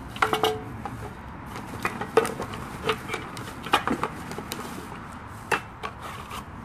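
Irregular clacks, knocks and rustles as cardboard and plastic packing are pulled out of a new electric grill's body, with parts bumping against it.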